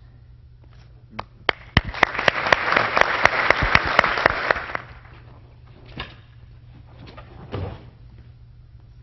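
Audience applauding for about three and a half seconds, with a run of sharp single claps close by standing out above the crowd, then dying away. Two softer knocks follow later.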